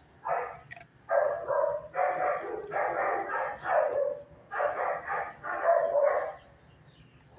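A dog barking over and over, about a dozen barks in quick runs, which stop about six seconds in.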